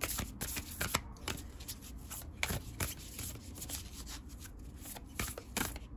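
A deck of oracle cards being shuffled and handled by hand: a run of quick, irregular card slaps and rustles.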